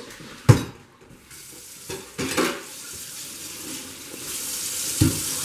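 A kitchen tap running into a stainless-steel sink while something is washed under it, the water getting louder in the second half. A sharp knock comes about half a second in, and a clatter of dishes about two seconds in.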